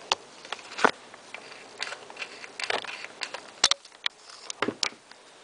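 Hands working with small craft pieces: a handful of sharp clicks and taps scattered through light rustling.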